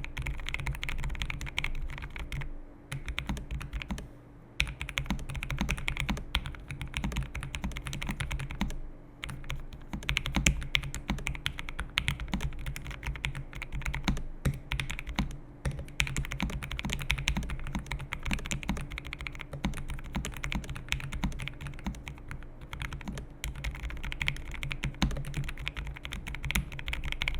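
Typing on a Lofree Flow84 Lite low-profile mechanical keyboard with Lofree x Kailh linear switches and PBT keycaps: a fast, continuous run of keystrokes with short pauses, soft and creamy rather than clicky. A low steady hum sits underneath.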